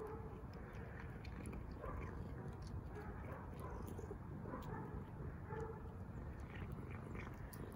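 Cat eating dry kibble: scattered crunching clicks and short chewing sounds over a steady low rumble.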